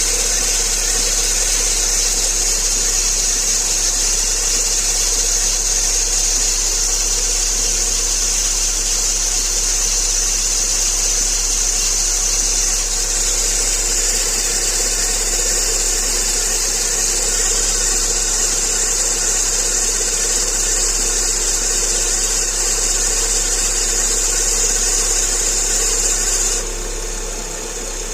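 A Lada Largus's 1.6-litre 16-valve VAZ-21129 engine running steadily at idle, with a strong steady high-pitched hiss over it. The sound drops a little in level near the end.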